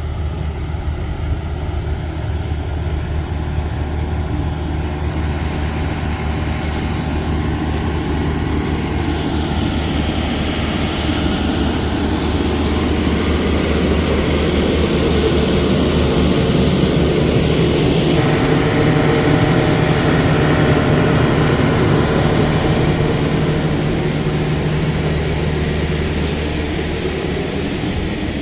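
Semi-truck's diesel engine idling steadily, a deep even hum that grows louder through the middle as the cab is passed and eases off toward the end.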